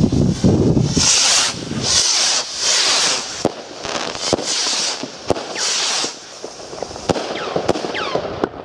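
Nico Rallye Ring rockets launching in quick succession, their motors rushing and hissing. From about the middle on come several sharp bangs as the rockets burst into rings of stars.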